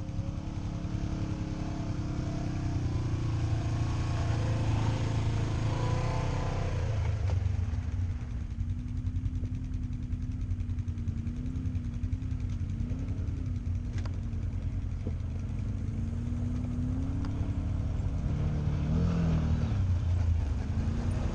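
Side-by-side UTV engines working up a rough dirt trail, the engine note rising and falling as the throttle is worked over the bumps. The sound grows louder near the end as the closest machine draws near.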